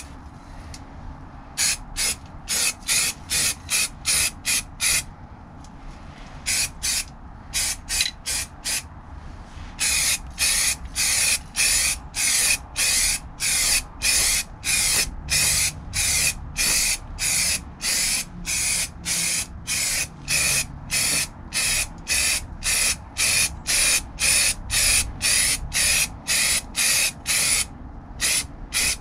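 Aerosol can of stone chip paint spraying in short, quick bursts, about two a second, with a brief pause about five seconds in and another about nine seconds in.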